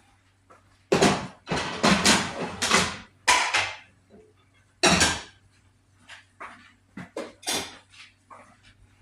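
Kitchen clatter of pots, dishes and utensils: a run of loud knocks and scrapes in the first half, then lighter clicks and taps.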